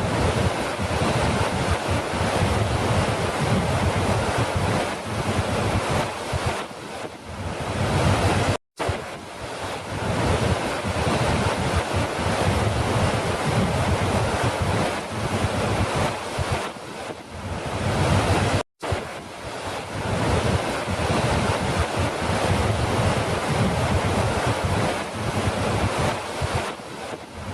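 Steady rushing of falling water, a continuous dense noise. It cuts out for an instant twice, about ten seconds apart, where the sound-effect loop restarts.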